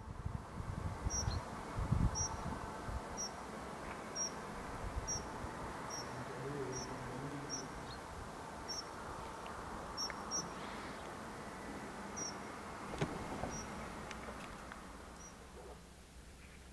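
Open-air countryside ambience: an insect chirps in short, high bursts about once a second over a soft steady hiss. Wind buffets the microphone with low thumps during the first few seconds.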